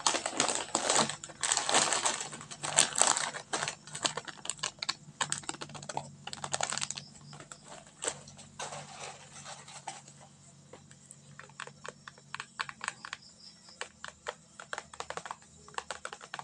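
Plastic packaging crinkling and crackling as it is handled: a dense run of crackles for the first several seconds, thinning to scattered clicks and rustles in the second half.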